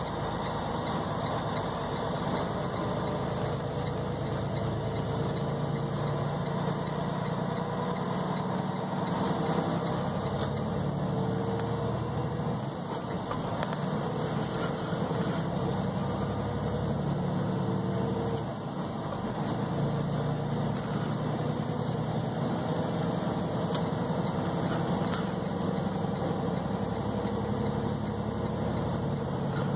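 Tractor-trailer's diesel engine running as the truck drives onto the freeway, heard from inside the cab, with road noise. The engine note drops off briefly twice, about halfway through and again a few seconds later.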